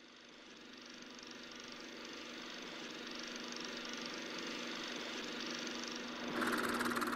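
Logo sound effect: a steady mechanical whirring hum that swells in gradually, then about six seconds in grows louder with a fast rattling clatter.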